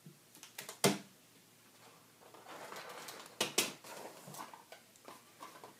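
Packaging being handled on a wooden table: a sharp tap a little under a second in, then rustling with two quick clicks near the middle and a few light ticks as items are taken out of a cardboard box.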